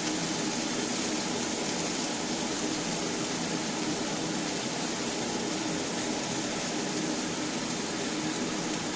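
Food sizzling and frying in a hot frying pan: a steady, crackling hiss of hot oil and sausage fat.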